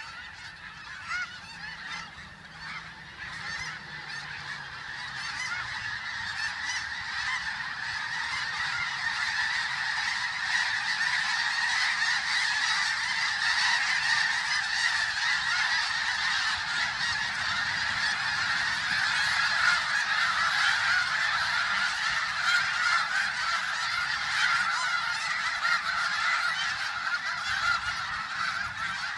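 A large flock of snow geese honking all together in a dense, unbroken clamour. It grows steadily louder over the first ten seconds as much of the flock takes to the air, then holds.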